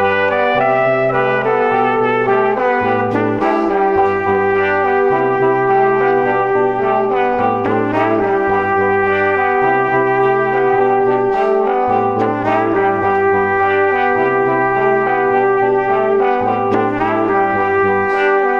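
Background music: brass instruments playing held notes over a bass line that steps to a new note about once a second.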